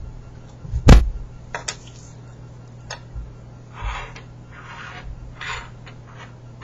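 Plastic Rubik's cube pieces being handled and fitted together during reassembly: one sharp knock about a second in, a few small clicks, then several short scraping rubs of plastic on plastic.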